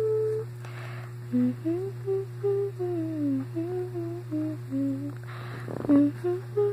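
A young woman's voice humming a wordless melody, note by note. There is an audible breath about a second in and another near the end, over a steady low background hum.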